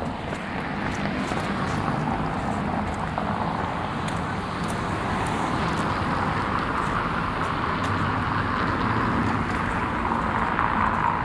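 Steady street traffic noise from passing cars, swelling a little near the end, with light regular footsteps on a gravel path.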